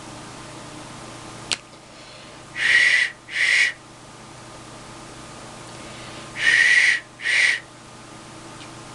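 Handmade clay duck whistle blown in two pairs of short, breathy toots, each pair a longer note followed by a shorter one. A sharp click sounds shortly before the first pair.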